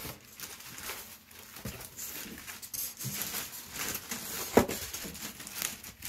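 Plastic wrapping and foam packing rustling and rubbing as a computer case is worked out of its foam end caps, with one sharp knock about three-quarters of the way through.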